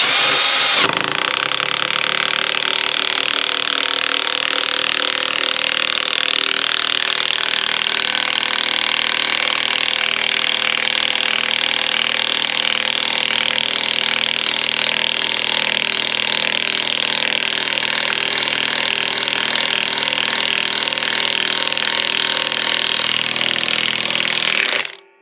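Craftsman V20 high-torque cordless impact wrench hammering steadily at speed 3 as it drives an 8-inch lag screw into wood. It cuts out briefly near the end.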